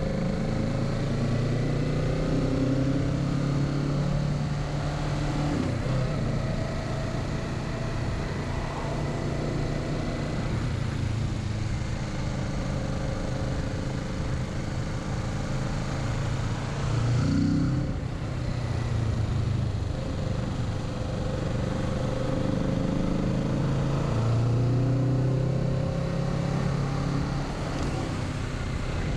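Kawasaki Z650's 649 cc parallel-twin engine pulling at low to mid revs, its pitch rising and falling through the bends, with an upshift from second to third gear in the first half. Wind rush runs underneath.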